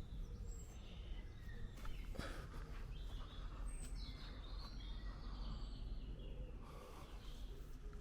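Outdoor ambience: a steady low rumble of wind on the microphone, with small birds chirping now and then and a few crunching footsteps through undergrowth.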